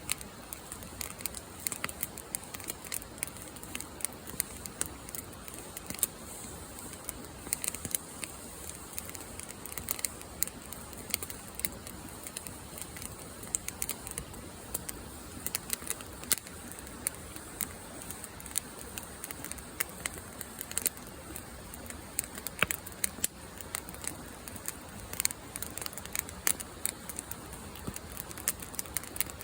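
Wood campfire crackling: a steady stream of irregular sharp pops and snaps over a low hiss.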